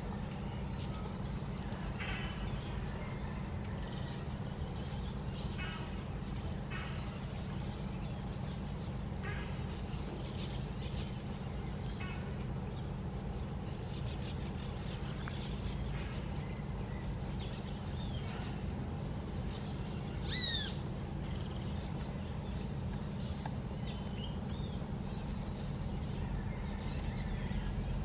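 Short bird calls and chirps, repeated every second or two, over a steady low rumble. One louder, sharper call comes about two-thirds of the way in.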